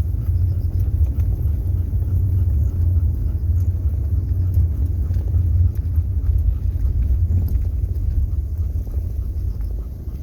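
Wind buffeting the microphone outdoors: a loud, low, fluttering rumble that eases slightly near the end.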